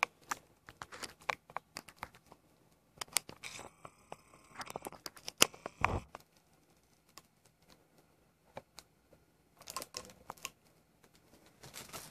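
Irregular light clicks and crinkling, as of small things and wrapping being handled, coming in clusters, with a soft thump about six seconds in.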